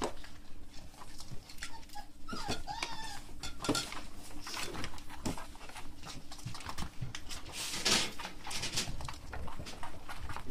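Beagle puppies whining, with a few short wavering cries a couple of seconds in, amid scattered clicks and rustling of small paws moving about.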